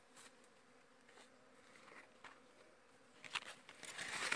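Faint insect buzzing with a few soft clicks, then about four seconds in a sudden loud rustle of maize leaves brushing close against the microphone.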